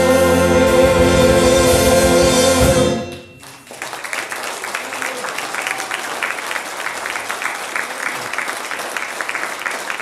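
Orchestra of strings, saxophones and brass holding the song's final chord, which cuts off about three seconds in; the audience then breaks into applause.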